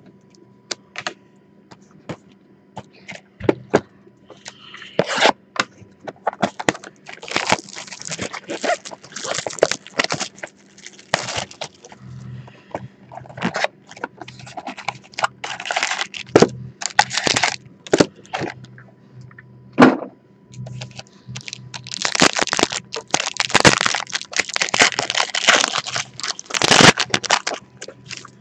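A box of 2017 Panini XR football cards and its foil packs being handled and opened: irregular crinkling, rustling and sharp clicks of cardboard, plastic tray and foil wrapper. A long stretch of dense crackling near the end is a foil pack being torn open.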